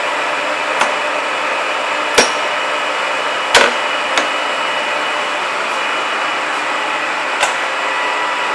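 Large manual lathe running with a steady hum from its headstock gearing and rotating feed shafts, broken by five sharp metallic clunks as controls are thrown to engage the carriage feed, the loudest about two and three and a half seconds in.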